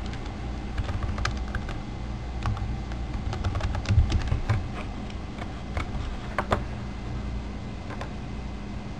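Typing on a computer keyboard: irregular key clicks, in a quick flurry around the middle, over a steady low hum.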